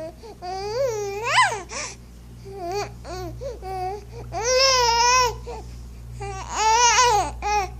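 A string of high-pitched wordless vocal calls that rise and fall in pitch, with a quick upward swoop about a second and a half in and two longer, held calls about halfway through and near the end.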